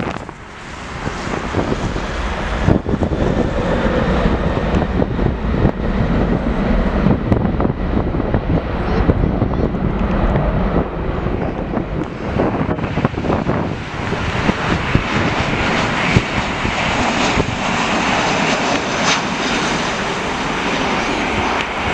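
Airliner engines heard as an aircraft passes, a continuous rumble that grows brighter and hissier, with a faint high whine, about two-thirds of the way through. Wind buffets the microphone.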